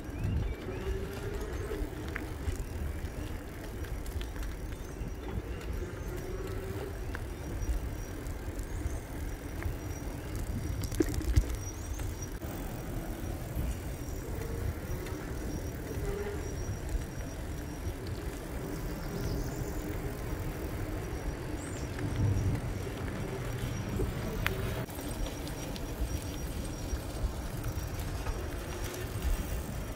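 E-bike ride: steady low rumble of wind on the microphone and tyre noise, with a faint wavering hum and a few small clicks and rattles.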